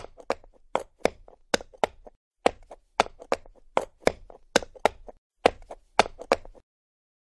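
A run of short, sharp clicks, mostly in quick pairs, about two pairs a second, which stops abruptly near the end.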